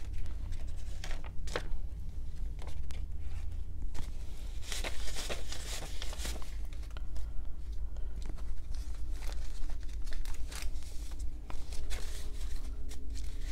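Paper banknotes rustling and flicking as a stack of dollar bills is counted through by hand, a quick run of short, crisp rustles over a low, steady hum.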